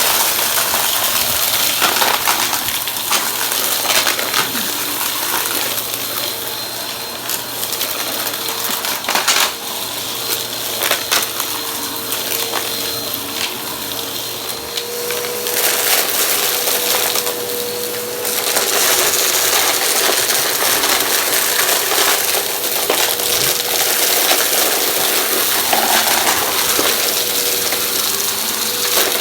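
Vacuum cleaner running and sucking up crunchy debris, with many sharp clicks and rattles as pieces are pulled in over a steady rushing hiss and a faint motor whine. The hiss drops back a little in the middle, then picks up again after the middle.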